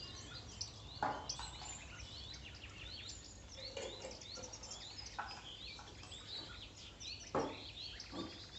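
Small birds chirping and twittering steadily, with a few knocks about one, five and seven and a half seconds in.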